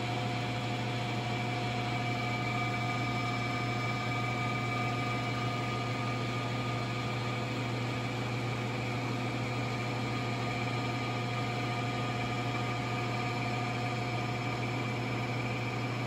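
Home-built magnetron microwave plasma source running, a steady low hum with a few faint high steady tones over a light hiss, unchanged while the air plasma glows in the tube.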